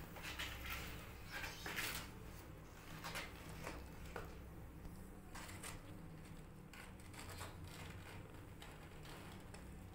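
Faint, scattered soft rustling and licking sounds from a mother cat grooming her newborn kittens, with the kittens shifting against the cardboard of their box. The rustles come thickest in the first few seconds, over a low steady hum.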